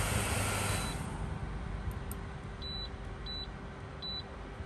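Induction cooktop being switched off under a pot of boiling water: a short high beep about a second in as the steady hiss of the cooker and the boil dies away, then three more short high electronic beeps less than a second apart.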